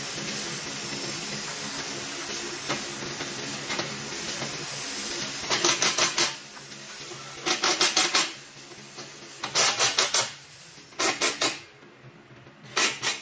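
Cordless driver run in five short bursts, each a quick run of sharp clicks, fastening the perforated heat shield on a semi truck's exhaust stack. A steady hiss fills the first five seconds.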